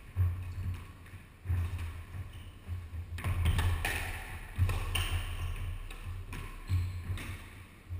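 Squash rally: the ball struck by rackets and smacking off the court walls in irregular sharp hits, with the players' feet thudding on the wooden floor.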